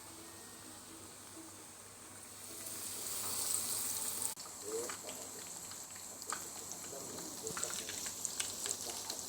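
Chicken fillets frying in hot oil. The sizzle swells up about two and a half seconds in, drops out for an instant around four seconds, then carries on with more and more crackling pops toward the end.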